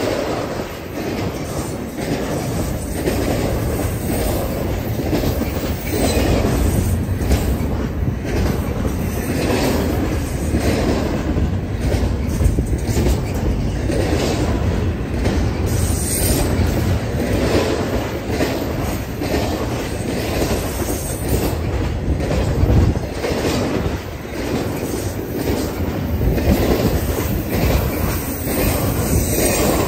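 A train rolling past: a steady, loud rumble with a rapid clickety-clack of wheels over the rail joints, running on without a break.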